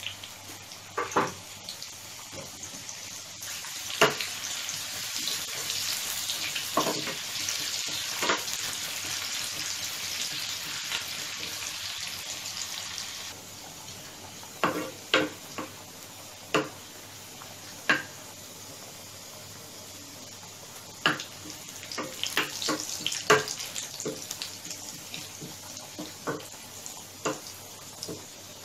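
Sliced onion frying in hot oil in a small pan, sizzling strongest for roughly the first dozen seconds and then dying down. A metal spoon clinks and scrapes against the pan now and then as the onion is stirred.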